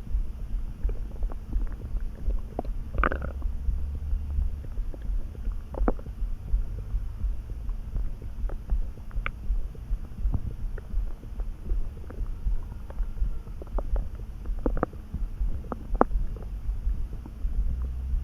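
A person's stomach rumbling and gurgling: a continuous low rumble with many short pops and squelches, a longer gliding gurgle about three seconds in and a few sharper pops near the end. The gut is active although its owner is neither hungry nor full.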